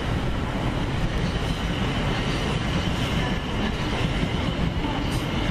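Class 450 Desiro electric multiple unit running away along the platform: a steady rumble of wheels on rail.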